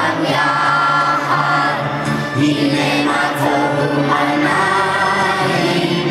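A choir singing with musical accompaniment, the voices holding long notes.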